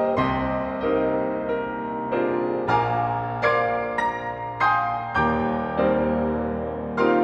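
Solo piano playing a slow, gentle piece: held low bass notes under chords and melody notes struck roughly every half second to a second, each ringing on.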